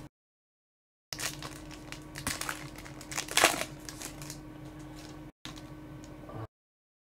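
Trading-card pack foil wrapper being torn open and crinkled by gloved hands. It starts about a second in, has its loudest tear in the middle, and stops about half a second before the end.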